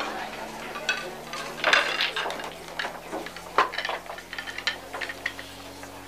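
Scattered light clinks and knocks of background clatter, such as dishes and cutlery, over a low steady hum.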